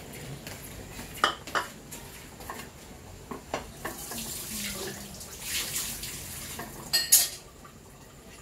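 Kitchen clatter of metal pots and utensils: a few sharp clinks, the loudest pair near the end, with a brief watery hiss a little past the middle.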